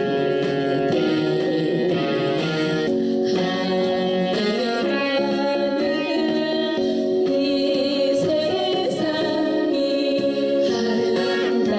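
A trot song playing, with a woman singing over the instrumental backing track.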